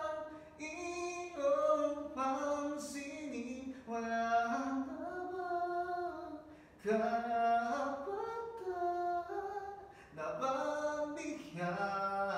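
A man singing a cappella in a high tenor voice, holding long notes that glide between pitches, with short pauses for breath, in a tiled restroom.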